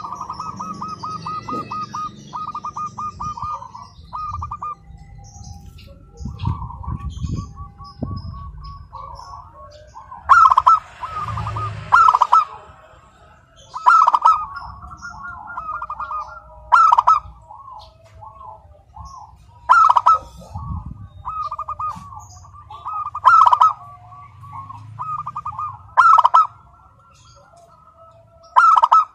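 Zebra doves (perkutut) cooing in rapid strings of short rolling notes. From about a third of the way in, a louder, sharper call breaks in about every three seconds.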